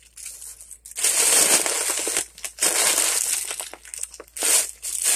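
Foil (mylar) helium balloon crinkling and crumpling in several long noisy stretches as it is squeezed at the mouth to breathe the helium out of it.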